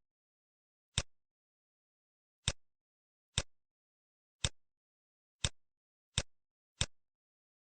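Computer mouse clicking, seven single sharp clicks at uneven intervals about a second apart, with dead silence in between.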